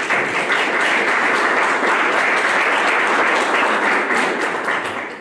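Audience applauding: dense clapping from a roomful of people that dies away near the end.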